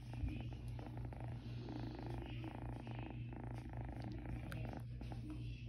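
A kitten purring steadily while it is stroked.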